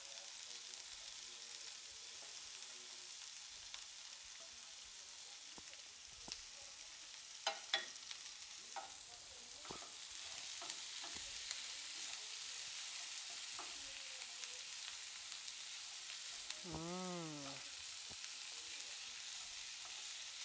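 Sliced onions, carrots, green beans and green peppers sizzling in oil in a frying pan as they are stir-fried, the sizzle growing a little louder about halfway through. A spatula clicks against the pan a few times.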